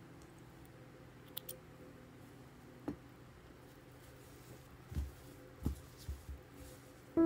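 Faint handling sounds of hands working and smoothing a knitted sweater: a few light clicks, then several soft bumps in the second half, over a steady low hum.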